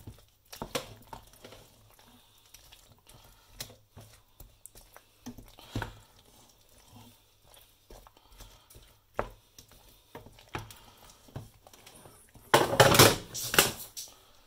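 Wooden spoon stirring cauliflower and pasta into a thick cheese sauce in a steel saucepan: scattered light knocks and scrapes of the spoon against the pan, with a louder run of knocking and scraping near the end.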